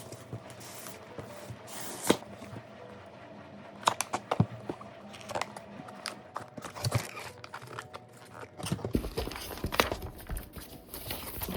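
Cardboard box and paper packaging being opened and handled: rustling, light scrapes and scattered sharp taps and clicks, busiest about 4 s in and again near the end.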